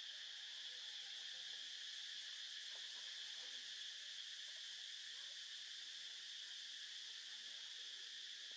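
Steady, unbroken high-pitched drone of insects.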